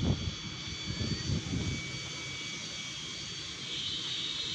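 Kaplan Power diesel generator set running steadily, with a constant hum and steady high-pitched whine. A few low thumps in the first two seconds.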